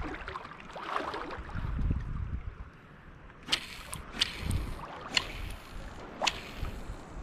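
Kayak paddling: low knocking and handling rumble at first, then about five sharp splashes or knocks of the paddle from about three and a half seconds in.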